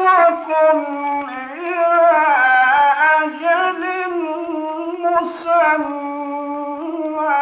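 A man's high voice reciting the Quran in melodic Egyptian tajwid style, drawing out one long ornamented phrase with sliding, held notes. The phrase ends near the end, leaving a pause before the next verse.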